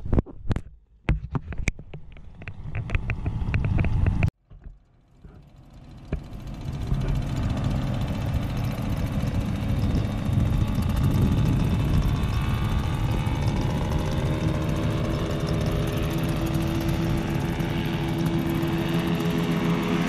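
Paramotor engines and propellers droning steadily overhead, swelling in from about six seconds in, with one tone growing stronger near the end as a machine comes closer. Before that, a few seconds of broken, gusty noise that cuts off abruptly.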